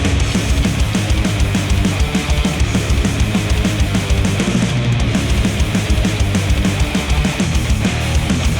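Heavy rock music with distorted guitar and a fast, driving drum beat, with no singing, played through headphones and recorded by microphones at the earcups.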